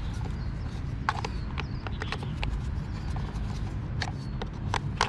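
Screwdriver turning a screw into a plastic toy garbage truck's chassis: irregular sharp clicks and ticks of the metal tip and plastic, the strongest about a second in and near the end, over a steady low rumble.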